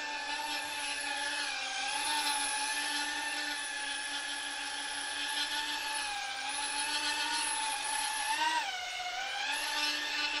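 Emax Tinyhawk 2 Race micro FPV quadcopter's brushless motors and props whining steadily as it hovers, on a test flight after a motor replacement. The pitch wavers slightly, rising and then dipping briefly near the end.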